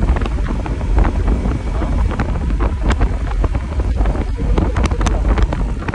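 Wind buffeting the microphone on a motor scooter riding at about 55–60 km/h: a heavy, steady low rumble with scattered crackles.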